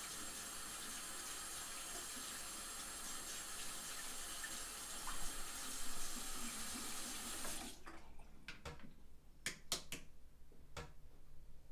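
Bathroom sink tap running a steady stream into the basin, shut off abruptly about eight seconds in. A few sharp clicks and knocks follow.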